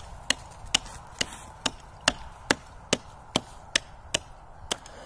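Small axe chopping pond ice, striking around the edge of a round hole being cut for an ice swim: a steady run of sharp blows, a little over two a second.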